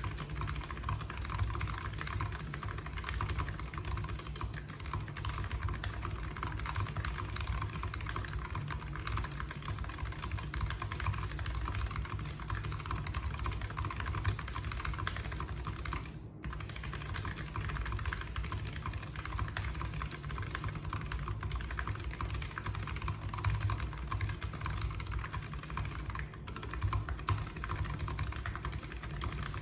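Fast, continuous typing on a Logitech G915 TKL's low-profile mechanical key switches: a dense run of irregular key clicks, broken by a momentary gap about sixteen seconds in.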